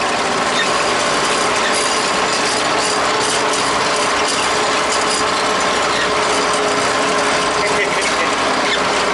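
Tractor under way, a steady mechanical rattle and clatter over an unchanging engine hum.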